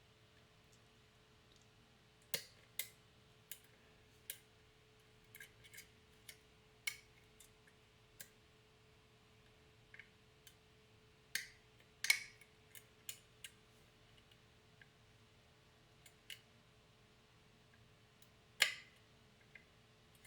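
Lock pick clicking against the pins of a challenge lock while it is picked: scattered, irregular sharp clicks, the loudest about twelve seconds in and again near the end, over a faint steady hum.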